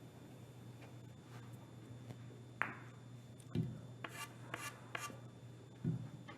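Carom billiard balls in play: a sharp click of ball striking ball about two and a half seconds in, dull thumps of balls hitting the cushions at about three and a half and six seconds, and a few short crisp knocks in between.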